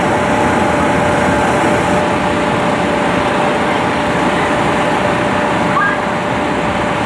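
A machine running steadily: a constant loud drone with a steady whine over it.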